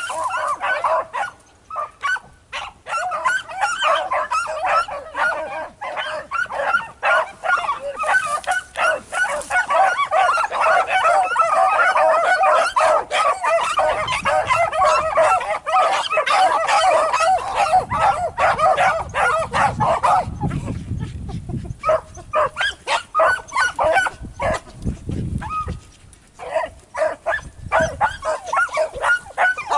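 Beagle baying on a rabbit's trail: quick, continuous bawls and chop barks, easing off briefly about two-thirds of the way through before picking up again.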